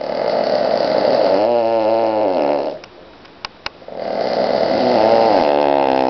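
Cavalier King Charles spaniel snoring: two long, loud snores with a rattling, wavering pitch. In the pause of about a second between them come two short clicks.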